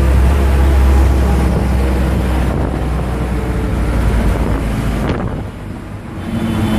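Auto-rickshaw's small engine running with a steady low drone while riding, with wind rushing over the microphone from the open sides. The engine sound dips briefly about five seconds in, then picks up again.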